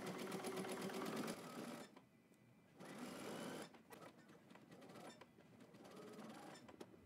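Domestic sewing machine zigzag-stitching elastic onto the edge of a mesh lining, the elastic stretched as it is sewn. It runs in stops and starts: a fast run, a pause of about a second, a shorter run, then slower, softer stitching that stops near the end.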